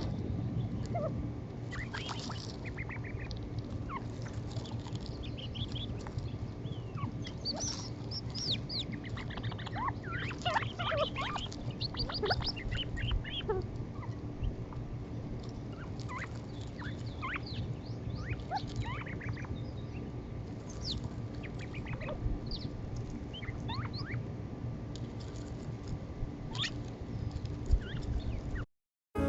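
Gambel's quail adults and chicks calling: many short chirps and quick rising and falling peeps, busiest about ten to twelve seconds in, over a steady low hum. The sound cuts off suddenly near the end.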